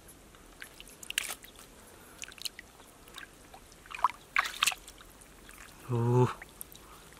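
Hands splashing and scooping in shallow muddy water, with scattered sloshes and drips as mud and grass are dug up. A short vocal exclamation near the end.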